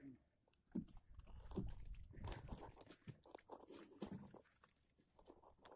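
Faint, irregular knocks, clicks and rustles of handling aboard a small fishing boat while a handline is worked and a gaff is held ready, with a low rumble about two seconds in.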